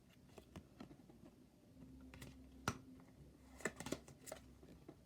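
Tarot cards being handled: a scatter of faint soft clicks and taps, the sharpest about two and a half seconds in and a small cluster near the four-second mark.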